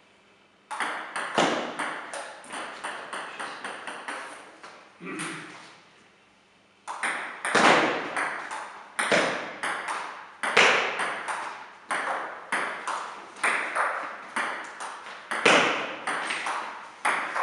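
Table tennis rally: the ball clicking in quick alternation off the bats and the table, several hits a second, each click ringing briefly in the hall. One rally runs for about four seconds and stops. After a short pause, a second, longer rally starts about seven seconds in.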